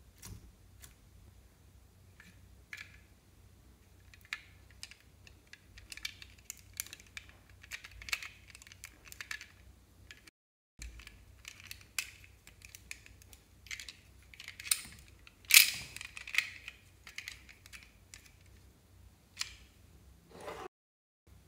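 Close-up handling of slime and a small plastic toy: a string of small clicks, taps and sticky crackles, loudest in a cluster about two-thirds of the way through, with two brief drops to silence at edits.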